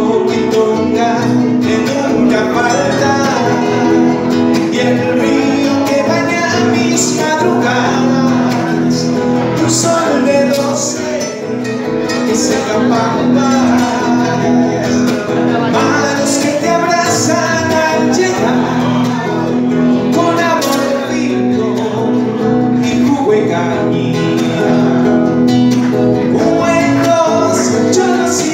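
Live Spanish-language folk song with female and male voices singing over two acoustic guitars, strummed and picked.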